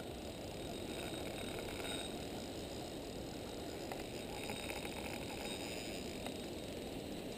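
Spinning reel being cranked to retrieve a lure, its gears whirring in two short spells, over a steady low background rush.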